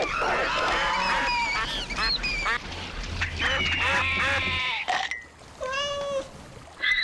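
Cartoon creature vocal effects: a fast jumble of high gliding squeaks, chitters and squawks, then a single drawn-out call about six seconds in and a short sharp squawk at the end.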